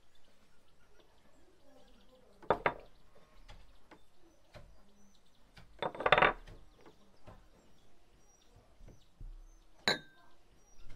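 Fingers rubbing butter into flour in a glass mixing bowl: soft gritty scraping of the crumbs against the glass, louder about two and a half and six seconds in. A sharp, ringing clink against the bowl comes near the end.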